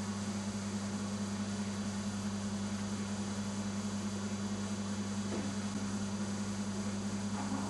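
Steady low electrical hum with an even hiss behind it; nothing else happens.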